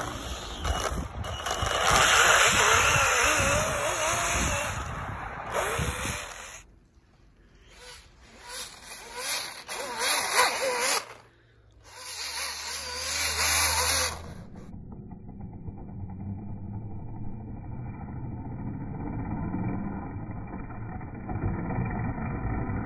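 A radio-controlled model snowmobile's motor whines as its pitch rises and falls with the throttle, with the track churning snow. The sound is cut off and changes abruptly several times.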